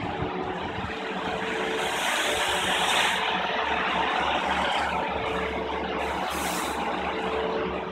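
Steady warehouse machinery noise with a constant mid-pitched whine and a low hum, swelling a little louder about two to three seconds in.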